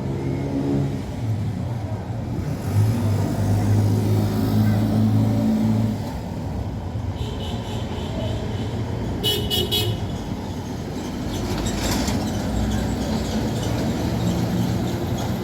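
Street traffic: motor vehicle engines running steadily, with a short high toot about nine seconds in.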